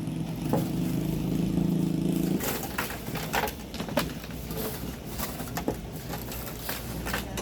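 A small engine runs steadily for about two seconds, then cuts off abruptly. Scattered sharp clicks and knocks follow.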